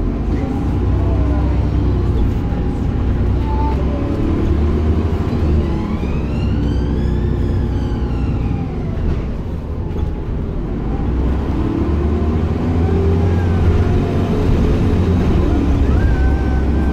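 Dennis Trident double-decker bus under way, heard from inside on the upper deck: a steady low engine drone with the rumble of the ride. The engine note rises and falls, and a higher whine rises and then falls about halfway through.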